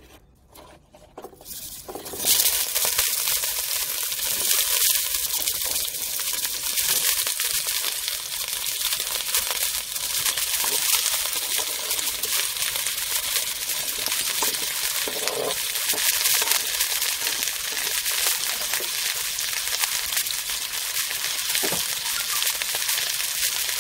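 Chopped onions, carrots and celery dropping into hot olive oil in a stainless steel pan about two seconds in and sizzling steadily as they fry, with a few faint knocks.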